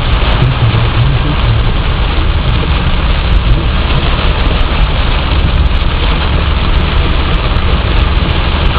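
Steady rain hissing, with a deep continuous rumble underneath.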